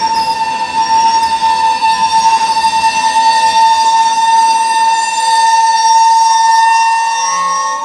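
Freight train tank-car wheels squealing against the rails as the cars roll past: one steady, high-pitched squeal with thinner, higher squealing tones above it, over the low rumble of the cars.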